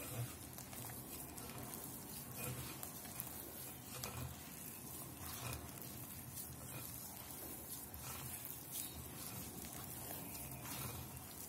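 Hands kneading soft, sticky flour-and-yogurt dough in a glass bowl: repeated irregular wet squelching and squishing as the dough is pressed and folded.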